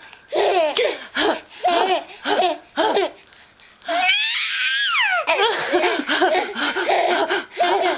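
Baby laughing in short giggling bursts about twice a second, with one long high squeal that rises and falls about four seconds in, then more giggles.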